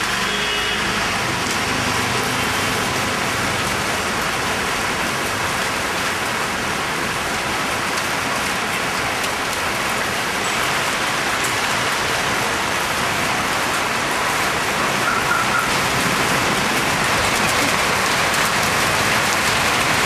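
Steady rain falling on a wet road and roofs, a little louder in the last few seconds, with cars driving past on the wet street.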